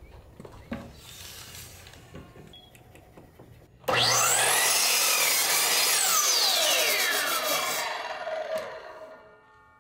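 Miter saw started about four seconds in, its motor whining up to speed and cutting through a wooden board, then the whine falls away as the blade coasts to a stop. Before it, soft rubbing and knocks of the board being handled and set on the saw.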